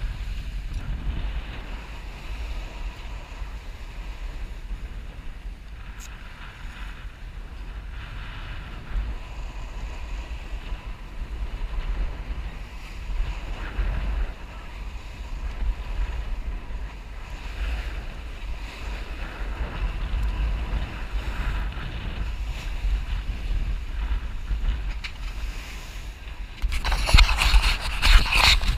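Wind buffeting the microphone over water rushing past the hull of a sailboat under way. Near the end a louder rubbing scrape comes in.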